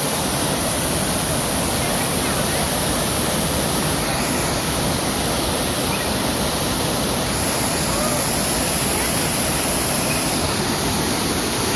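Waterfall: a steady rush of falling, churning water.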